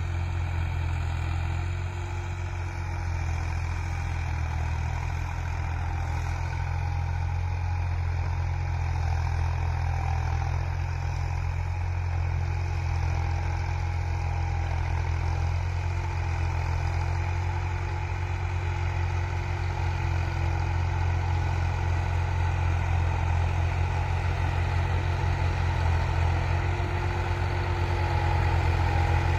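Massey Ferguson 260 tractor's four-cylinder diesel engine running steadily under load as it pulls an eleven-tine cultivator through the soil, a low drone that grows slightly louder towards the end as the tractor comes closer.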